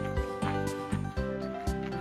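Background music with a steady beat and held notes that change pitch.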